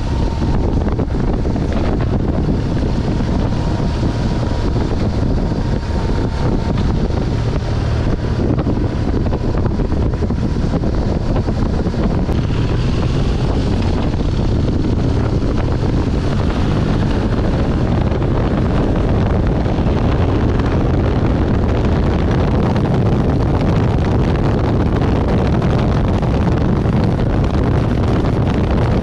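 BMW R1200GS boxer-twin engine running while the motorcycle is ridden, mixed with steady wind rumble on the microphone.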